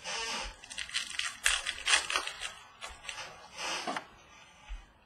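Trading-card pack wrapper being torn and crinkled and cards being handled, in several short rustling bursts that fade out near the end.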